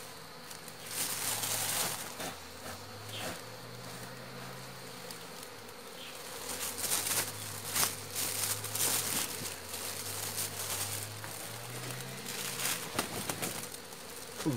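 Honeybee swarms held in woven sacks buzzing in a steady low hum, with rustling and crinkling from the sack and paper being handled several times.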